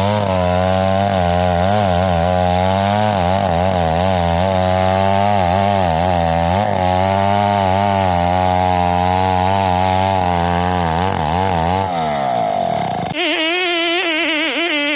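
Stihl 070 two-stroke chainsaw with a very long bar running hard through wood, its engine pitch wavering under load, then winding down about 12 seconds in. About a second later it cuts off abruptly and a different, higher pitched sound takes over.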